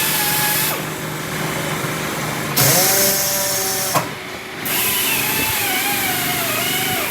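Power tool motor running with a wavering whine, breaking off and starting again a few times.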